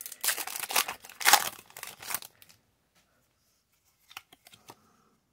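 Foil wrapper of a Pokémon booster pack being torn open and crinkled by hand for about two and a half seconds, then a few light clicks as the cards are handled.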